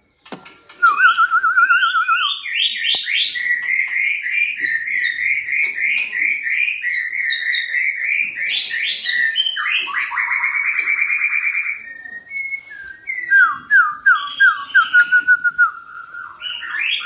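White-rumped shama singing a loud, varied song: a quick warbling trill, then a long run of rapid whistled notes, a harsh rattling passage about ten seconds in, and a series of sharp falling whistles after it.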